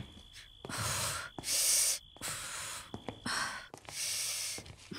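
A woman breathing in about five sharp, hissing breaths, one every second or so, shivering in the cold.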